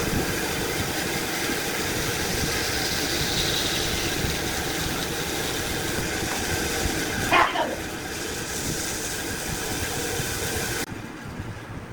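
Woodworking machine running steadily, with a short louder sound about seven seconds in; most of its high-pitched noise drops away abruptly about a second before the end.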